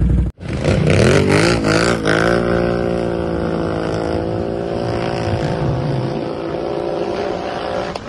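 Vehicle engine revving up with its pitch swinging up and down for about two seconds, then running at a steady speed.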